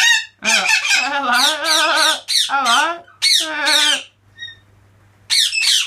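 Pet parrot squawking: a run of loud, harsh, wavering calls in quick succession, a pause of about a second, then more squawks near the end.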